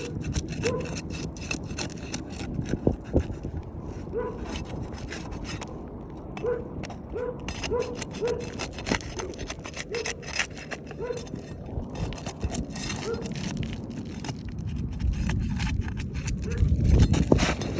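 Asphalt roof shingles being pried and pulled loose by hand: scattered scraping and clicking with short squeaks. A gust of wind rumbles on the microphone near the end.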